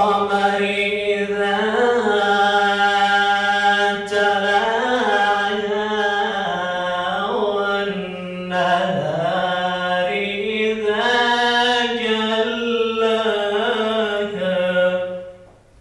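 A man reciting the Qur'an in Arabic in the melodic chanted style (tilawat), holding long ornamented notes. The chant dips briefly about four and eight seconds in and stops just before the end.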